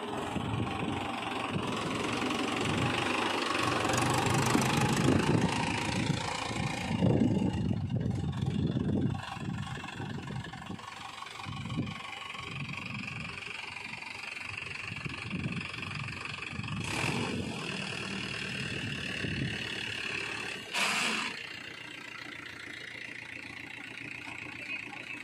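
Mahindra Yuvo 575 DI tractor engine running as it drives the hydraulic tipper, lifting the loaded trailer bed to dump soil. It runs harder for the first several seconds, then settles to a lower, steady running, with two short noisy bursts in the second half.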